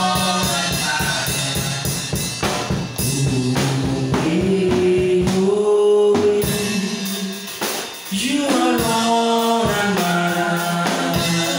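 Live gospel praise song: a man sings into a microphone over a band with a drum kit, holding one long note for a couple of seconds near the middle.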